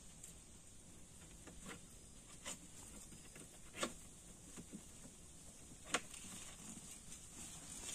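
Faint scattered clicks and taps from hands handling a black plastic shrimp trap, the sharpest about four and six seconds in, over a steady high hiss.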